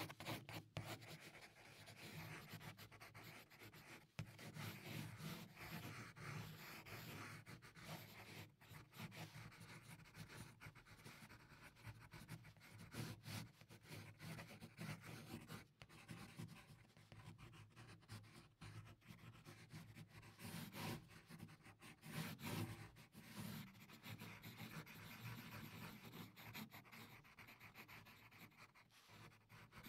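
Faint scratching of a pencil on paper during sketching, in uneven strokes that come and go.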